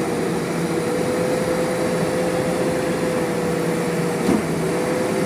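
JCB backhoe loader's diesel engine running steadily, with a constant tone held over the rumble and a short knock about four seconds in.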